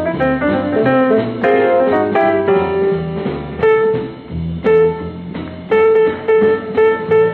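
Solo piano playing a jazzy instrumental: quick runs of notes over low bass notes, then from about halfway a single note struck again and again in short, even stabs under sparse chords.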